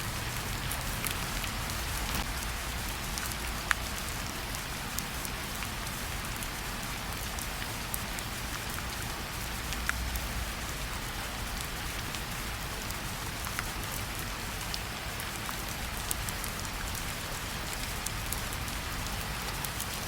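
Steady rain falling: an even hiss with a low rumble beneath, and now and then a single louder drop ticking.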